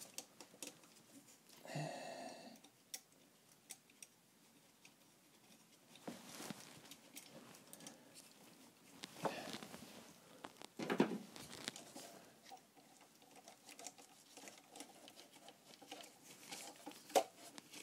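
Faint hands-on work noise at the turbo: gloved hands rustling against foil-wrapped parts and scattered small metal clicks as a bolt is fitted, with a sharp click near the end.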